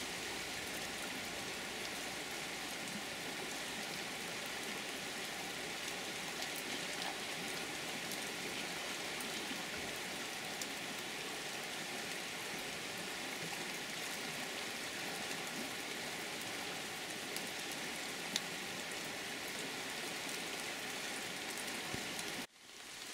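Steady rain falling on a river and the surrounding leaves, an even hiss with faint scattered drop ticks. It cuts off suddenly near the end.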